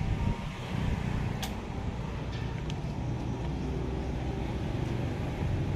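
Kubota ZL1-315 tractor's diesel engine idling steadily, a low even hum, with a single light click about one and a half seconds in.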